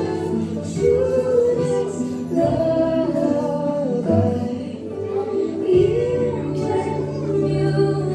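Music with a singing voice, a wavering melody carried over steady sustained low accompaniment notes.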